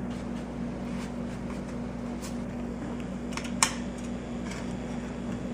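Steady background hum from a fan, with a few faint clicks and one sharper tick about three and a half seconds in.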